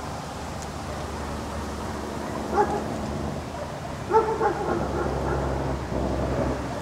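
A dog barking in short yips: once about two and a half seconds in, then several in quick succession about four seconds in, over a steady low hum.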